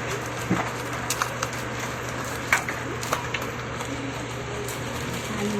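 Steady low hum and background noise, with a few short, sharp clicks and taps scattered through it.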